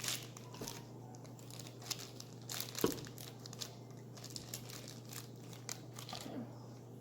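Mixing stick stirring and scraping a thickening glue mixture in a plastic cup: irregular scratchy, crinkly clicks, with one sharper knock about three seconds in, over a steady low hum.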